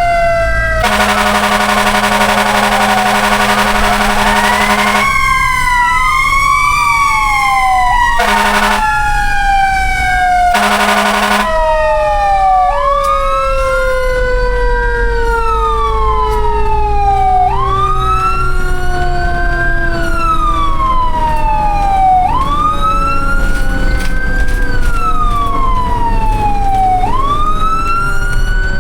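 Several fire truck sirens sounding together. One tone slowly falls in pitch for about twenty seconds, while another rises sharply and falls back about every five seconds. Three horn blasts come in the first half, a long one near the start and two short ones about eight and ten seconds in, over a low engine rumble.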